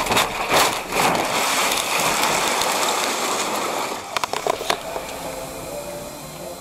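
Semi truck on its side, the cab scraping and sliding along the gravel roadside with sharp crashing knocks and gravel spraying against it. About four seconds in the scraping dies away, leaving scattered clicks and crackles of settling debris.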